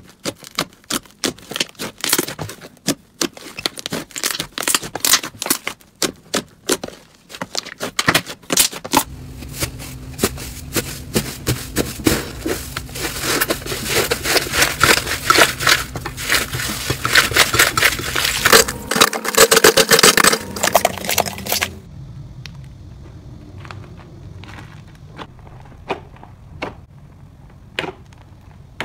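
Hands squishing and kneading slime: first a run of separate sticky pops and clicks, then a long, dense crackling stretch, then quieter, sparser pops near the end.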